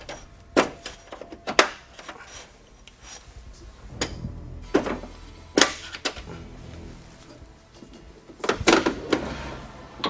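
Metal clunks and clicks from the rotary locking handles on military display-wall modules being turned and latched: several sharp clunks spread through, with a quick cluster near the end, over background music.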